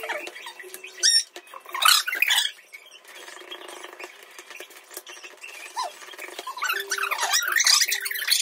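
Small animals squeaking and chirping in quick, irregular bursts, loudest about two seconds in and again near the end.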